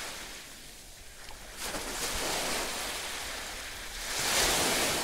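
Sea waves washing in: a rushing hiss that swells and fades in slow surges, rising about two seconds in and peaking again near the end.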